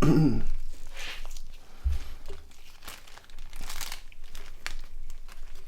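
Hands handling the small plastic parts of a Nokia 5610 XpressMusic phone during reassembly: rustling and crinkling with scattered light clicks, and a low thump about two seconds in.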